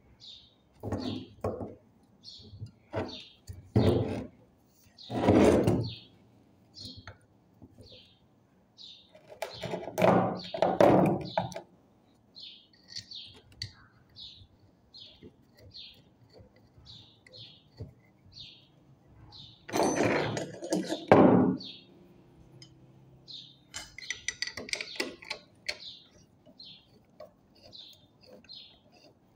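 Metal knocks and clunks from starter-motor parts being fitted by hand, coming in several clusters. A small bird chirps repeatedly in the background.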